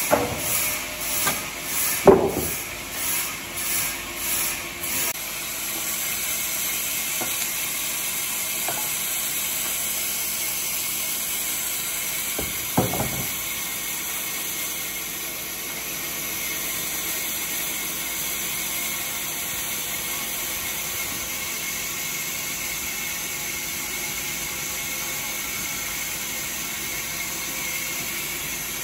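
Sawmill band saw running steadily as a squared timber beam is fed through it: an even whine with hiss. In the first few seconds there is a rhythmic mechanical clatter about every two-thirds of a second, with a sharp knock about two seconds in and another around thirteen seconds.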